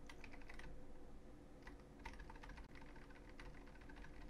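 Faint clicking of computer keyboard keys, pressed in a few short, quick runs.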